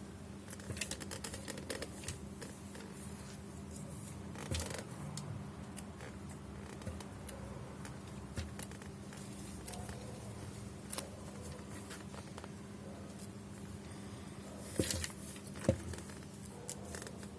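Scattered light clicks and rustles of handling over a steady low hum, with two louder knocks near the end.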